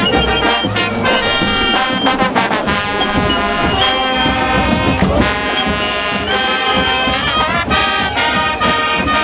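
Brass band playing, with held brass chords and frequent drum beats.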